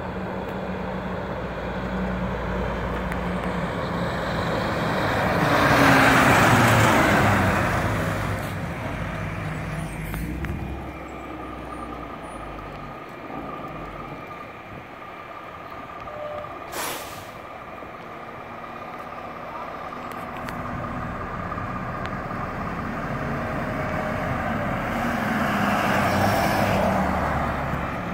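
Fire engine driving past close by with its diesel engine and tyres, the sound swelling and its pitch falling as it goes by about six seconds in. A brief sharp sound comes about halfway through, and near the end an ambulance and another fire engine pass.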